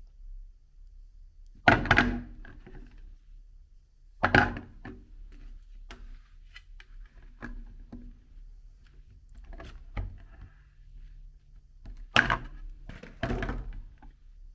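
Soap pieces knocking against a meat grinder: four loud thunks with lighter knocks between them, over a faint low hum.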